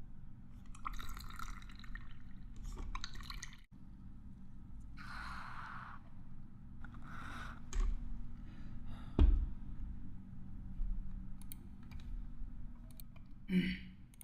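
Foley effects made with hand-held props: a series of short rustling, swishing noises broken by scattered clicks, with a sharp knock about nine seconds in as the loudest sound.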